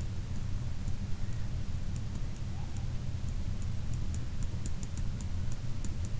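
Pen writing on paper: faint scratches and light ticks as the words are written, over a steady low hum.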